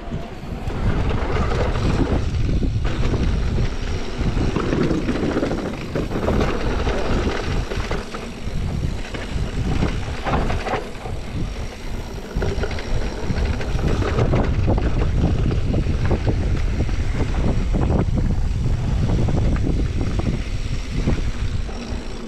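Wind buffeting the helmet- or chest-mounted action camera's microphone during a fast mountain bike descent on a dirt trail, with tyre noise on the dirt and scattered knocks and rattles from the bike over bumps.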